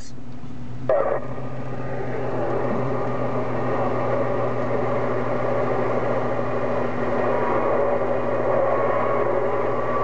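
Static and hiss from an HR2510 radio's speaker between transmissions on 27.085 MHz, steady with a low hum under it. A short burst sounds about a second in.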